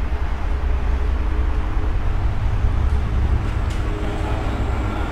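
Steady low rumble of road traffic, with cars and trucks passing close by.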